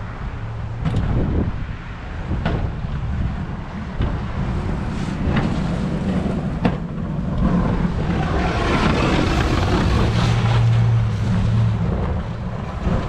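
Snow-plow truck engine running steadily, with a few sharp knocks and a rushing, scraping noise that swells for several seconds in the second half.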